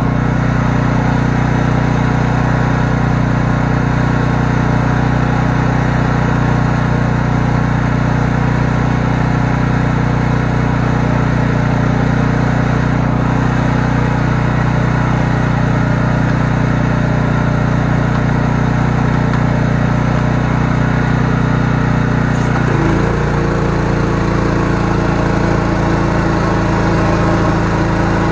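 13-horsepower engine of a high-pressure sewer jetting machine running steadily while driving the jetting pump, which puts load on the engine. About 23 seconds in, the engine note shifts abruptly to a different pitch.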